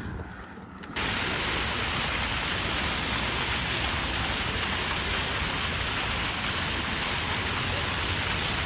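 Steady rushing of falling water, starting abruptly about a second in.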